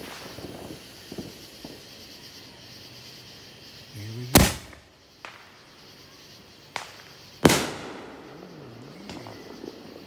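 A Red Palm number 500 aerial firework going off. A loud bang about four seconds in launches the shell, and a second loud bang about three seconds later is the shell bursting overhead; each bang rings off for most of a second. People's voices exclaim around the bangs.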